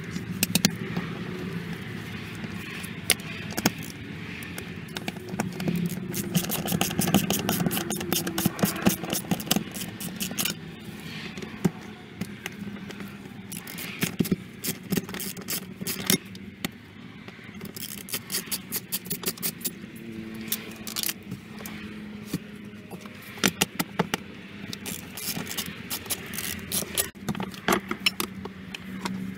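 Hand tools and metal parts clicking, scraping and rattling at a BMW E46's fuel pump access cover as it is worked loose and lifted off, in many short sharp taps over a steady low hum.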